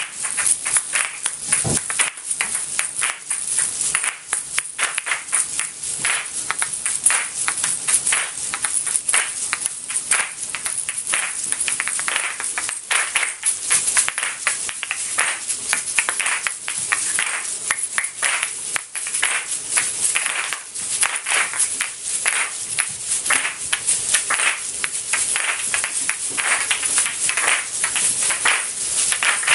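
Asalatos, paired seed-filled shells on a cord, played by a group: a dense, rapid stream of hard clacks where the shells strike each other, mixed with the rattle of the seeds inside.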